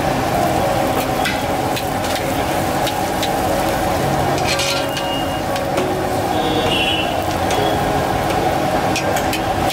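Bhature sizzling as they deep-fry and puff up in a large kadhai of hot oil, a steady frying hiss. A few sharp clicks stand out now and then.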